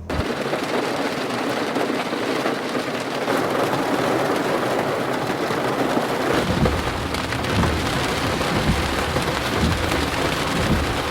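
Steady, dense rain hiss that starts abruptly, with low rumbles coming in about six seconds in.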